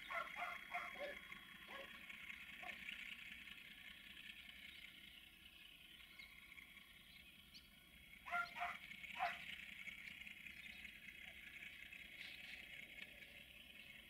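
Faint distant diesel freight locomotive (a Romanian LDE2100) running as it approaches, barely heard under a steady high hiss of rural background. Short animal calls come in two clusters, one at the start and one about eight seconds in.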